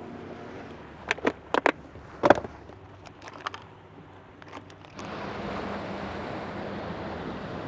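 Several sharp plastic clicks and rattles from a clear plastic tackle box, its latches snapping and the baits inside being handled, followed by smaller ticks. From about five seconds on, a steady wash of wind and lapping water.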